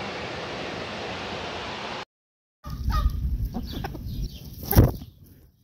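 Chickens clucking in short notes while pecking at a plastic tub of grasshoppers, with a sharp knock about five seconds in. A steady hiss fills the first two seconds and breaks off suddenly before the clucking starts.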